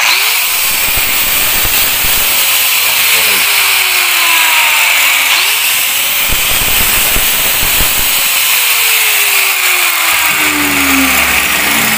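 Stanley STGS8100 850 W 4-inch angle grinder running free with no load, with a loud high motor whine. Its pitch rises as it spins up at the start and again about halfway through, and sinks twice as it runs down. The grinder is being tested after a repair to its worn slide switch, which now locks on.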